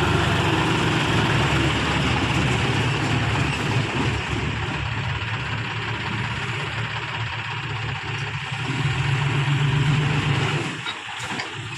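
John Deere tractor's diesel engine running steadily. It eases off in the middle, picks up again, then drops away sharply near the end.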